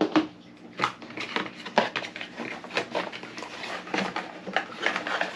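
Irregular clicks, taps and rustling of packaging as a power cord and its adapter are taken out of the box.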